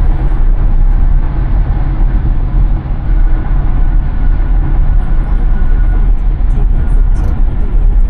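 Steady tyre and road rumble with wind rush, heard inside the cabin of a 2023 Tesla Model Y cruising at freeway speed. As an electric car it has no engine note, so the rumble of the tyres is the main sound.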